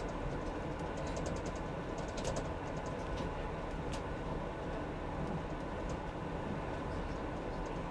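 Electric passenger train running along the track, heard from the driver's cab: a steady rumble with quick clusters of light clicks and ticks.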